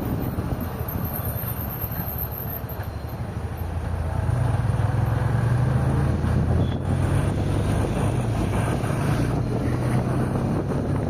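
Road noise from a car driving along a highway: a steady rumble of tyres and engine with wind, growing louder about four seconds in.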